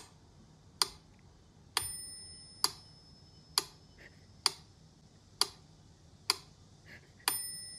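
Mechanical metronome ticking steadily at a little under one tick a second, its bell dinging twice, on every sixth beat.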